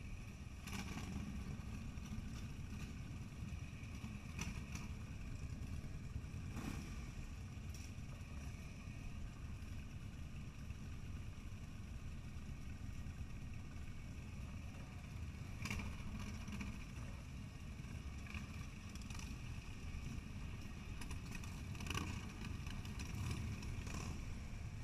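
Harley-Davidson V-twin motorcycle engines idling, a steady, muffled low rumble, with a few faint knocks scattered through it.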